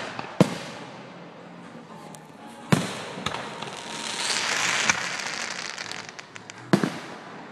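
Aerial fireworks shells bursting with sharp bangs, one just after the start and another under three seconds in. A swell of dense crackling from glittering stars follows through the middle, then a quick double bang near the end.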